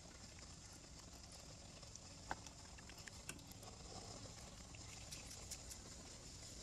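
Faint background hiss with a few light clicks, the sharpest about two seconds in, from a metal ladle touching the pot and bowl of broth.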